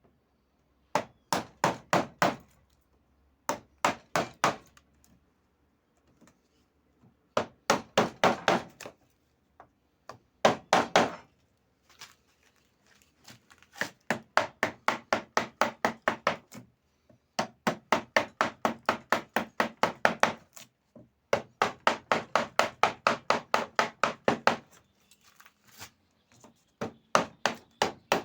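Rapid light strikes on wood, about five a second, in runs of one to four seconds with short pauses between, as when a hammer or mallet taps at a piece of wood.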